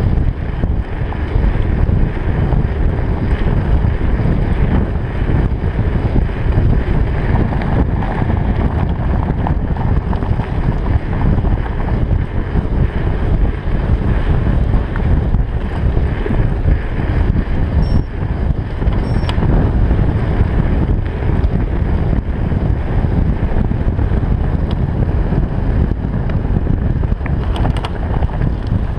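Steady, loud wind buffeting a GoPro's microphone during a fast mountain-bike descent, mixed with the low rumble of knobby tyres rolling over a gravel road.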